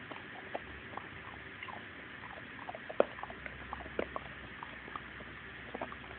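Black puppy's mouth sounds right at the phone's microphone: scattered small clicks, smacks and faint squeaks, with a sharper click about three seconds in and another about a second later.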